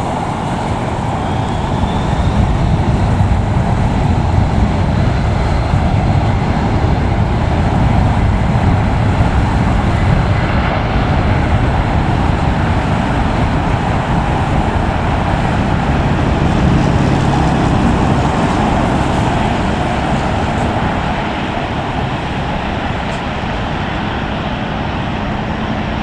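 Steady roar of a twin-engine jet airliner at takeoff power on its takeoff roll. It swells about two seconds in, holds, then slowly fades as the aircraft pulls away.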